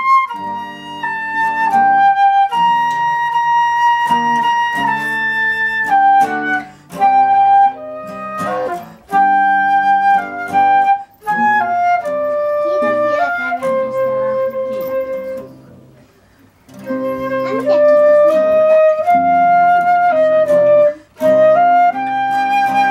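Concert flute playing a slow melody of held notes, accompanied by two classical guitars plucking chords. The music pauses briefly about two-thirds of the way through, then resumes.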